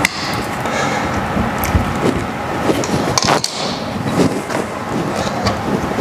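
Small clicks and scrapes of electrical wires being twisted together into a splice, with a sharper click about three and a half seconds in, over a steady background hiss.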